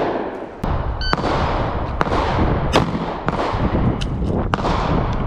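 A string of pistol shots from a Smith & Wesson M&P Shield Plus, about six or seven sharp reports at uneven spacing, over a steady low rumble.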